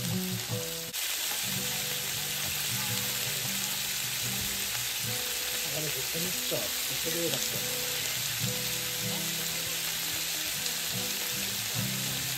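Chicken pieces and chicken hearts sizzling on an electric hot plate, frying in the fat and juices they give off with no oil added, a steady crackling hiss.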